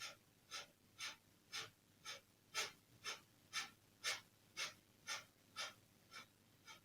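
Kapalabhati breathing: short, forceful exhalations through the nose, about two a second in an even rhythm, each pushed out by a pump of the belly muscles, growing a little fainter near the end.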